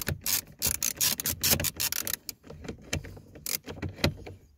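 Screwdriver tightening a screw into the plastic dashboard: a fast run of sharp clicks and scrapes that thins out after about two seconds into a few separate clicks.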